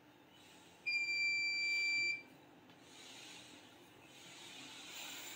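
One steady, high-pitched electronic beep held for just over a second, starting about a second in.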